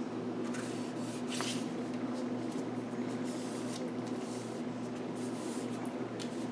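Hands rubbing and pressing glued paper flat onto card: soft, brief brushing and rustling strokes that come and go, over a steady low hum.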